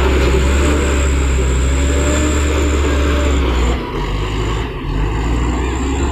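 Hydraulic crawler excavator's diesel engine running loud and steady as the machine works, with a thin high whine above the drone; the sound eases briefly twice in the second half.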